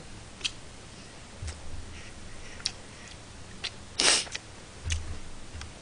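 Close-miked chewing of a mouthful of rice, with small wet mouth clicks about once a second. About four seconds in there is one short, louder breathy rush of noise.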